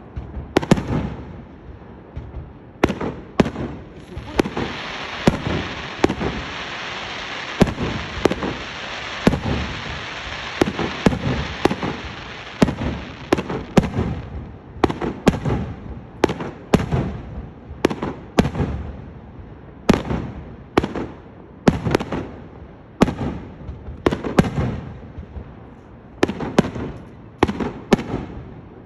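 Aerial fireworks launched and bursting at close range: a rapid run of loud, sharp bangs, one or two a second, with a steady hiss filling the gaps from about four to thirteen seconds in.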